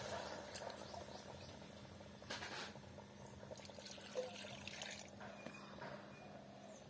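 Water poured from a steel bowl into a steaming pot of beef curry: faint pouring and splashes, with a few short louder splashes in the middle.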